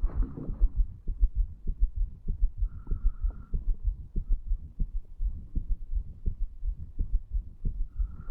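A man's heartbeat recorded against the chest over the mitral (bicuspid) valve area: a steady run of low thumps. A faint high tone comes in briefly about three seconds in.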